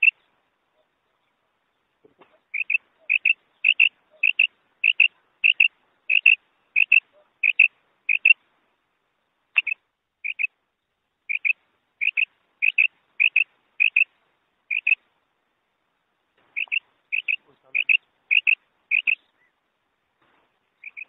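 Female common quail calling: short, sharp notes repeated about two a second in runs, broken by a few brief pauses.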